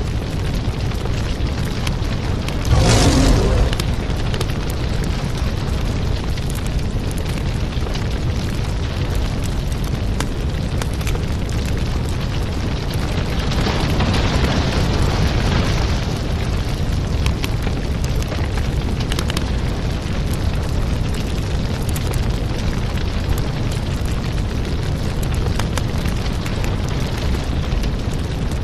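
Fire sound effect: a steady, low rumbling of flames, with a brief louder burst about three seconds in and a swell around the middle.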